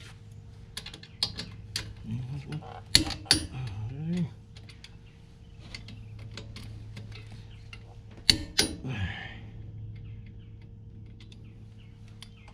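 Metal tools and parts clicking and clanking during work on a truck's front wheel hub, with sharp knocks about three and eight seconds in, over a steady low hum.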